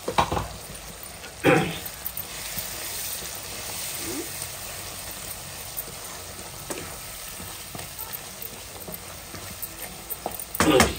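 Chicken pieces sizzling in oil and masala in a nonstick wok as the remaining cooking liquid fries off, stirred with a wooden spatula. A few sharp knocks come near the start and again just before the end.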